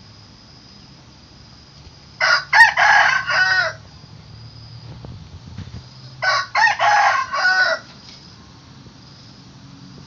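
Rooster crowing twice, each crow about a second and a half long and broken into several syllables.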